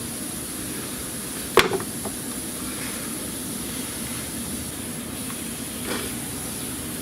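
A steady background hum and hiss, broken by one sharp knock about one and a half seconds in, a couple of small ticks just after, and a fainter knock near the end: parts being handled during a thermostat housing removal.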